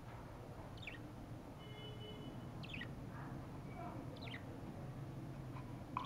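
Caged budgerigars giving three short chirps, each a quick falling note, about a second and a half apart, over a low steady background hum.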